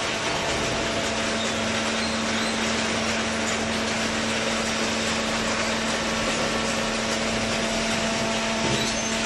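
Cardboard baler machinery running: a steady, even mechanical noise with a constant low hum.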